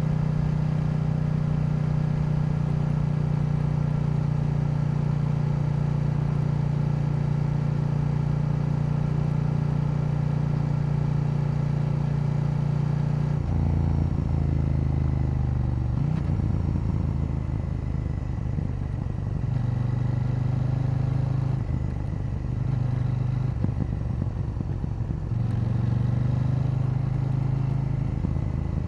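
KTM 890 Duke's parallel-twin engine running under way, holding a steady pitch, then about halfway through stepping down suddenly in pitch and wavering up and down before settling into a steady tone again near the end.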